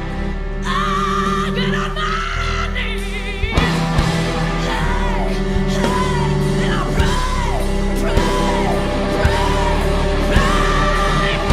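Live hard rock: a female lead singer belting and screaming long high notes with vibrato over distorted electric guitar, bass and drums. The drums come in hard about three and a half seconds in, under a run of short falling sung phrases, and she holds another long high note near the end.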